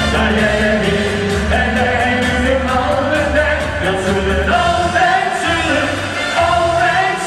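Two male singers of a pop ballad holding long, slightly wavering sung notes over an instrumental backing with a steady bass.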